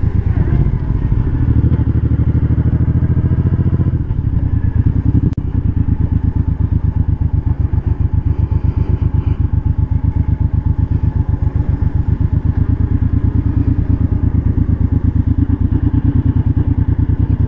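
2013 Suzuki Boulevard M90's 1,783 cc V-twin engine running while riding, heard from a mic inside the rider's full-face helmet. The engine note changes pitch in the first few seconds, then settles into a steady low-revving pulse, with a single click about five seconds in.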